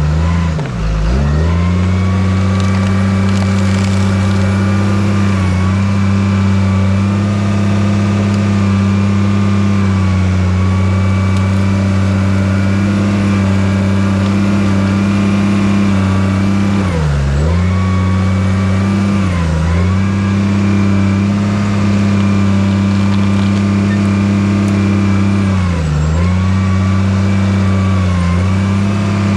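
Heavy earthmoving machine's diesel engine running hard under load with a whine riding on it. It bogs down briefly about five times, near the start and again around two-thirds of the way through and near the end, each time recovering to its steady pitch.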